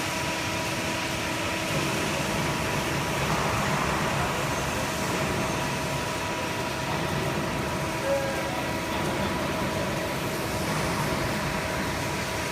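Hydraulic press brake's pump unit running steadily: an even mechanical hum with a few fixed whining tones and no strokes or impacts.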